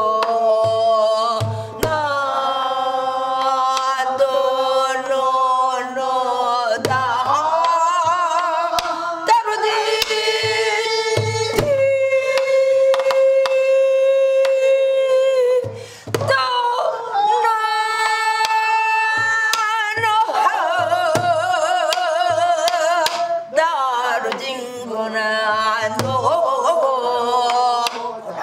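A woman singing Korean gueum, a melody on syllables without lyrics, with wide vibrato and long held notes, one held steady for several seconds near the middle. She accompanies herself with stick strokes on a sori-buk barrel drum, spaced irregularly.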